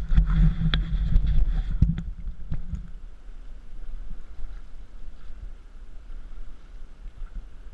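Paddling noise from an inflatable kayak on calm river water: a low rumble with a few sharp knocks over the first three seconds, then a soft steady hiss.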